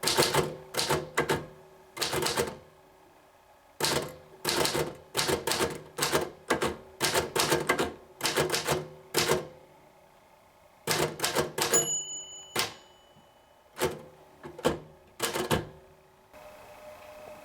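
1929 Royal Model P typewriter being typed on: irregular runs of keystrokes, the type bars striking the platen several times a second. After a short pause about eleven seconds in, the bell rings once, and a few more strokes follow before the typing stops.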